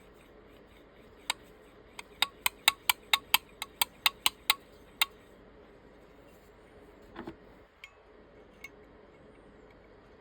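A run of about a dozen sharp clicks, roughly four a second for about three seconds, then a few fainter knocks.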